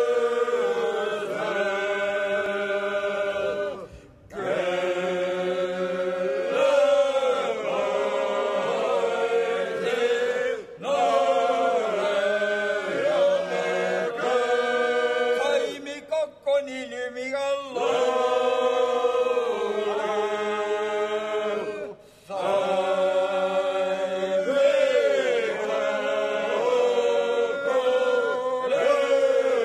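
Seto leelo choir singing unaccompanied in several voices, a traditional polyphonic folk song sung in phrases of about six seconds with short breaks for breath between them.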